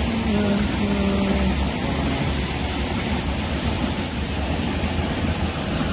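Short, high-pitched chirps repeating about two to three times a second, an animal calling from the riverside trees, over a steady low rumble.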